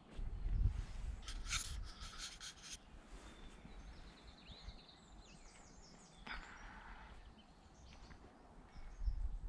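Woodland songbirds singing, including a rapid run of sharp notes and then several short repeated phrases, over low rumbling on the microphone that is loudest in the first few seconds and again near the end.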